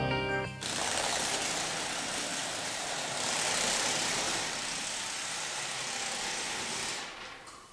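A steady rushing hiss that starts about half a second in, as the music cuts off, and fades away near the end.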